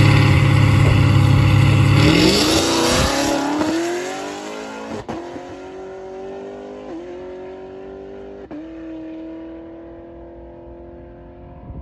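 Cadillac CTS-V's supercharged V8 held at high revs on the starting line, then launching about two seconds in and accelerating hard down the drag strip. The pitch climbs and drops back at upshifts about five, seven and eight and a half seconds in, fading as the car pulls away.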